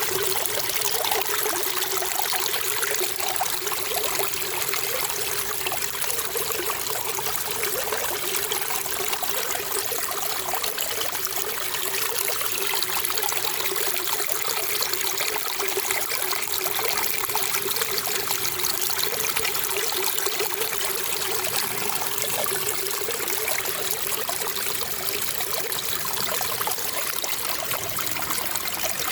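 Water trickling and running steadily, an even splashing with a lively, bubbling flutter in the low-middle range.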